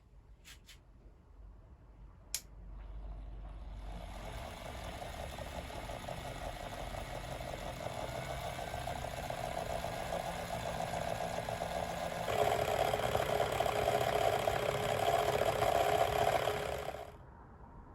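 A small electric motor, such as a workshop power tool, is switched on with a click and runs steadily. It steps up to a louder, higher speed about two-thirds of the way through, then stops suddenly.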